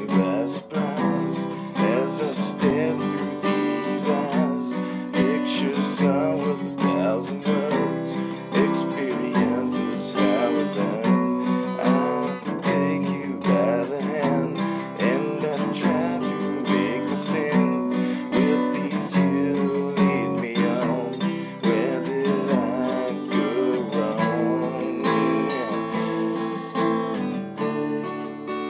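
Acoustic guitar strummed in a steady rhythm of chords, ending on a chord left to ring near the end.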